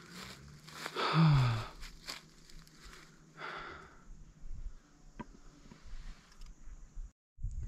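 A man's short voiced sigh that falls in pitch, about a second in, with a softer breathy exhale a couple of seconds later and light scuffs of footsteps on a trail. The sound drops out briefly near the end.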